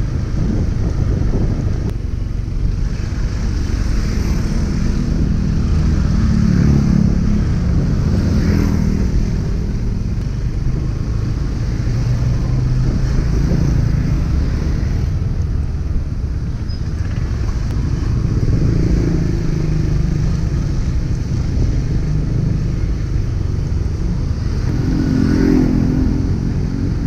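Motor scooters and a car passing on a narrow town street, heard from a moving vehicle over a steady low rumble of wind and road noise on the microphone. Engine sound swells as riders pass close, about a quarter of the way in, about two-thirds in, and again near the end.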